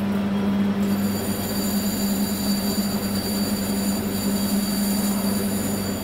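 Warco WMT800 lathe-mill combo running under load as the tool turns down the diameter of an aluminium billet, a steady geared-drive hum with a high-pitched squealing whine from the cut joining about a second in.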